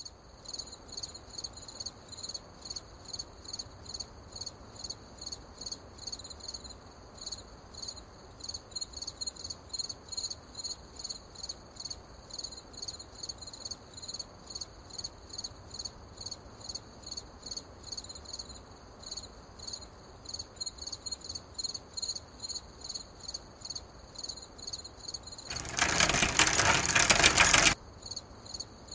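Crickets chirping in a steady, even rhythm, about two chirps a second, as a night-time background. Near the end a loud burst of hissing noise lasts about two seconds, then stops suddenly.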